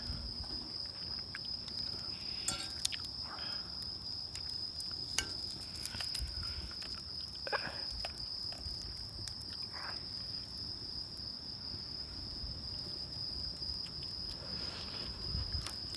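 Crickets trilling in one steady, high, unbroken tone, with a few faint scattered clicks and knocks.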